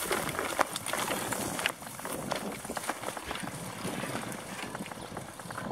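Bicycle riding over a narrow dirt trail: tyres crunching on the ground and the bike rattling with many small clicks and knocks, with tall grass brushing against the bike. The brushing is loudest for the first second and a half or so, then the ride settles into a steadier, quieter rattle.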